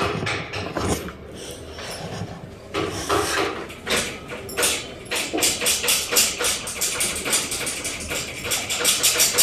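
A dog moving about in its metal wire crate, pawing at it so the wire panels rattle and click. The clicks become a fast, busy run from about five seconds in.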